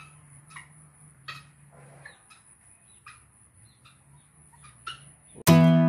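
White-breasted waterhen chick and parent calling: short, sharp peeps repeated roughly every half second, over a faint steady high whine. Acoustic guitar music comes in suddenly near the end.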